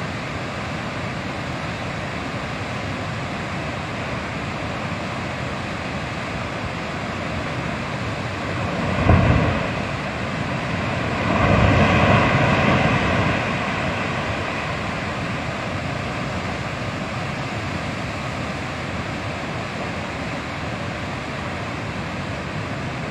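Steady rush of glacial-lake outburst floodwater. There is a sudden crash about nine seconds in, then a louder surge for a few seconds as water and debris pour down over the rock overhang.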